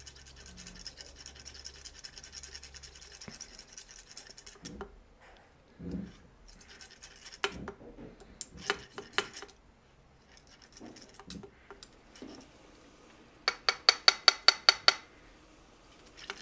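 Screwdriver and syringe working at the fill port of a liquid CPU cooler's radiator. A steady buzzing hiss runs for the first four seconds or so, then come scattered clicks and taps, and near the end a quick run of about ten sharp clicks.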